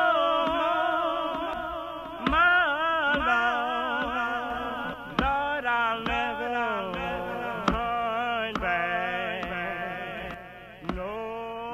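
A song: a voice holding long, wavering notes with strong vibrato and sliding between pitches, without clear words, with a few sharp struck accents about every two to three seconds.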